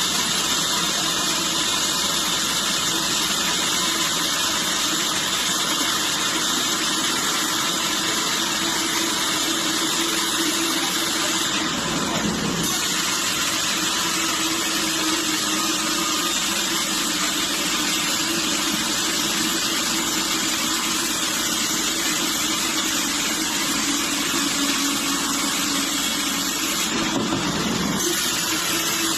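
Sawmill machinery running steadily: a constant engine-like drone with a low hum, briefly changing character about twelve seconds in and again near the end.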